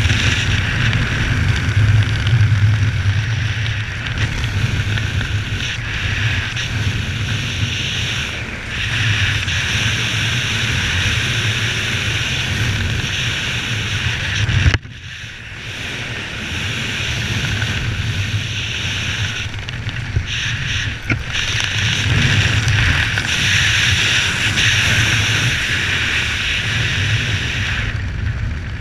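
Steady rushing wind on a helmet camera's microphone during flight under an open parachute canopy. About fifteen seconds in there is a sharp knock, after which the wind is quieter for a few seconds before building back up.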